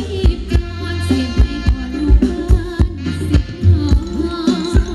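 Live Thai ramwong band music played loud over a PA: a drum kit keeps a steady beat over heavy bass, and a singer's voice wavers above it.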